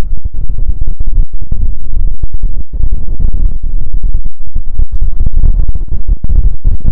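Wind buffeting a budget vlogging microphone: a loud, distorted low rumble that cuts out for a split second many times.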